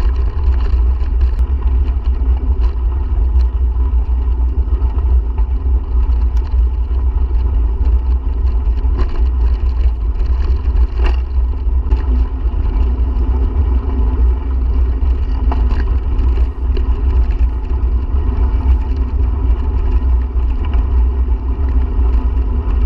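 Steady low rumble of wind buffeting the microphone while riding a bicycle, with a few faint clicks.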